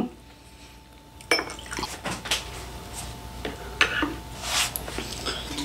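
A glass soju bottle set down on a table with a sharp knock about a second in, then scattered light clinks and clicks of tableware and snacks being handled on a ceramic plate.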